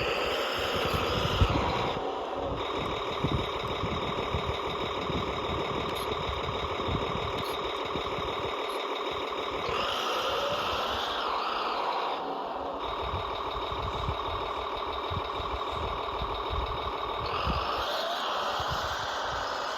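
Kyosho Blizzard 2.0 radio-controlled tracked snow vehicle running on its electric drive, a steady mechanical whine of several tones from motor and gearing. The sound shifts and brightens three times: near the start, in the middle and near the end.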